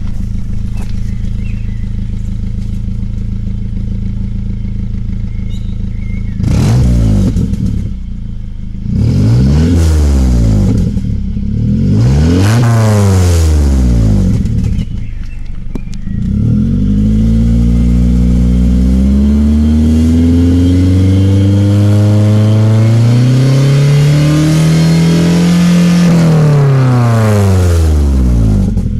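Nissan KA24E 2.4-litre inline-four on its stock exhaust idling steadily, then blipped three times in quick revs. It is then brought up slowly in one long climb to high revs and let fall back to idle near the end.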